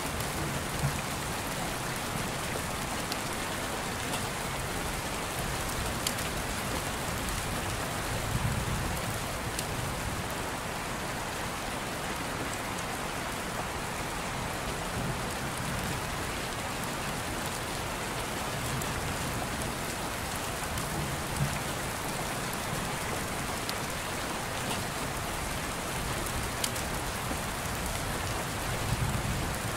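Steady rain, an even hiss with a few faint ticks of drops.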